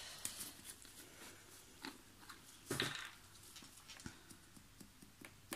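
Quiet handling sounds of small items being moved about on a work table: scattered light clicks, with a louder short rustle about three seconds in.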